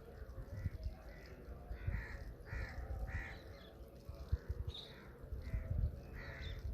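Crows cawing in short series of repeated calls, one group about two seconds in and another near the end, over some low thuds.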